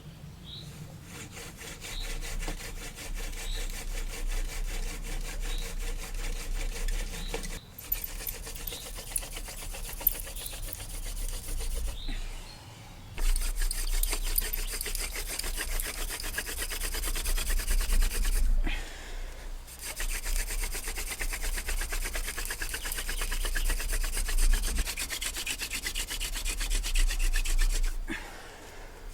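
Hand-drill friction fire: a wooden spindle twisted back and forth between the palms, rasping as it grinds into a soft yucca hearth board. The rubbing stops for four short breaks as the hands are repositioned on the spindle, then starts again.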